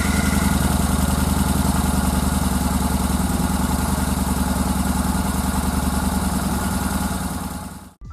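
Yamaha XVS950 Bolt's air-cooled V-twin engine idling steadily just after starting, freshly filled with new oil. It stops abruptly near the end.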